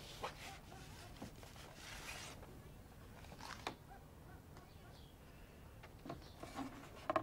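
Vinyl LP record being slid out of its paper sleeve and set on a turntable: a soft brushing swish about two seconds in and a few faint clicks of handling.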